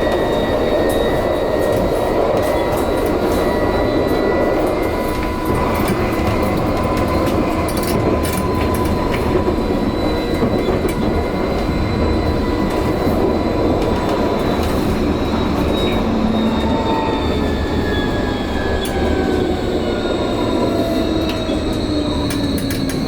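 Vossloh Tramlink tram running on the line: steady rolling noise of wheels on rail with a high electric traction whine. Several whine tones slide downward over the last few seconds as the tram slows.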